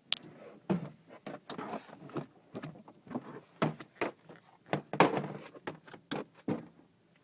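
Irregular short clicks, knocks and rustles of plastic car-door parts being handled and fitted together as a piece is connected on the door panel of a 2006 Pontiac Vibe; the loudest knocks come about five seconds in.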